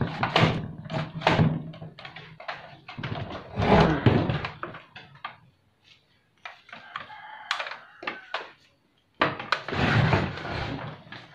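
Clicks, knocks and rattles of a Sharp CRT television's plastic cabinet and chassis board being handled and shifted, with two louder scraping thumps about 4 and 10 seconds in.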